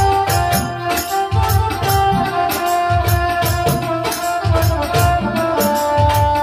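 Instrumental music: a held melody line that steps from note to note over regular low drum beats and fast light percussion clicks.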